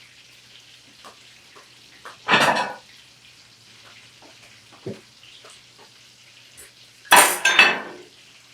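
Kitchen utensils and dishes clattering and scraping: one clatter a couple of seconds in, a small knock midway, and a louder double clatter near the end, with light clicks between.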